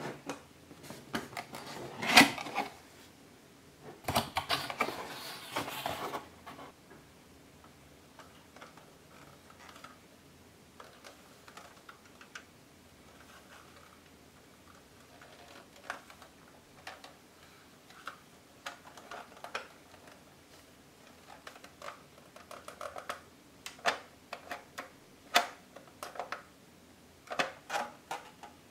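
Hard plastic parts of a toy noodle-making machine clicking and clacking as they are handled and set down, with a sharp knock about two seconds in. There is a burst of cardboard box rustling from about four to six seconds in, and denser clicks near the end.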